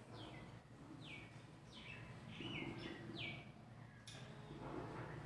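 A small bird chirping over and over: short high calls that fall in pitch, about one a second, with a single sharp tap about four seconds in.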